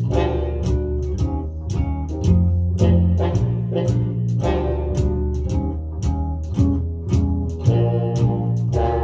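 Big band jazz played back on a hi-fi stereo system: plucked bass and guitar over a steady swing beat, with brass.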